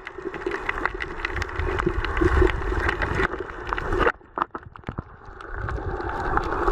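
Underwater sound picked up by a camera held underwater: a steady hum with many short, sharp clicks and a low, muffled rumble of water moving against the camera. It drops out briefly a little after four seconds, then returns.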